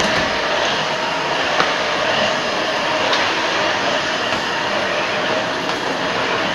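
Shark Rotator Professional Lift-Away vacuum cleaner running steadily, its motor and suction making an even rushing hum, with a couple of light clicks as it is pushed along.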